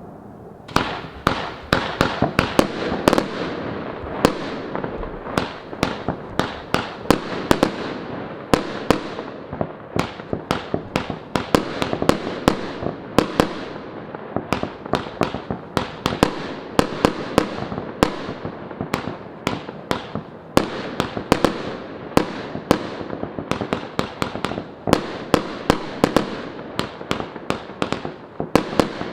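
A 100-shot, 25 mm consumer fireworks cake firing in rapid succession: sharp bangs of launches and bursts come several times a second without a break, over a continuous hiss and crackle.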